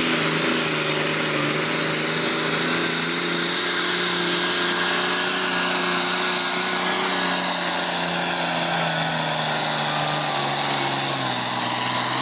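Light pro stock pulling tractor's turbocharged diesel engine running at high, steady revs under full load as it drags a weight-transfer sled down the track. Near the end the engine note drops as the pull winds down.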